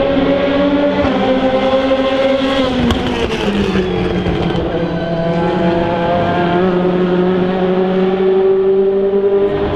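DTM race car's 4.0-litre V8 engine running hard. The note falls about three seconds in, with a few sharp crackles, then climbs slowly and steadily.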